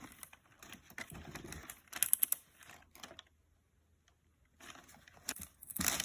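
Rustling and light clicking and tapping from handling a pair of new sneakers and their packaging, broken by a short pause of near silence midway.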